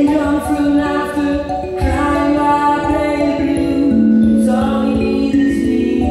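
Live music: a man singing a slow melody, with layered, sustained vocal tones beneath it.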